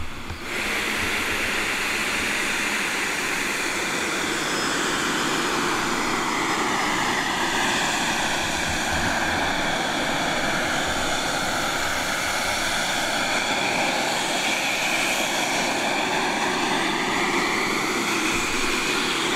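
Twin 3D-printed ducted fans of an RC airboat, each spun by a 2200 kV brushless motor, running at speed with a steady jet-like rush. The rush shifts lower in the middle and rises again as the boat passes.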